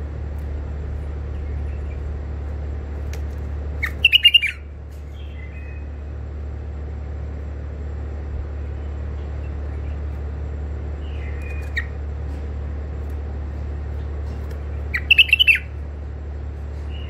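Caged white-eared bulbul giving short, bright call phrases: two loud ones about four seconds in and near the end, with fainter calls between, over a steady low hum.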